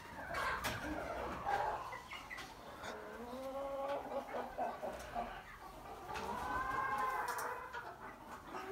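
Chickens clucking and calling, with one long drawn-out call rising and falling from about six seconds in.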